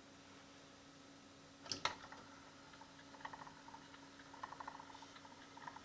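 Small mechanism of a Sharp RP-V500 record player with a freshly fitted silicone drive belt: a faint steady hum, one sharp click about two seconds in, then several short runs of light ticking and rattling.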